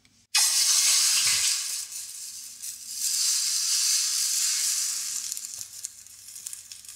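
Hot saucepan of just-cooked caramel plunged into a bowl of cold water, hissing sharply as it hits the water about half a second in; the hiss swells again and then fades. The cold water quench stops the caramel cooking.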